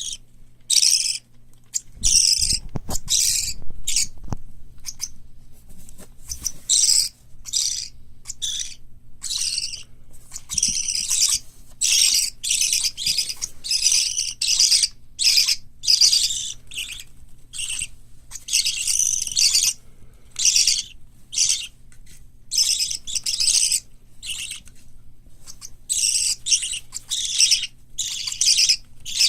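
Parrot chicks calling: a fast run of short, raspy, hissing high cries, one after another with only brief gaps.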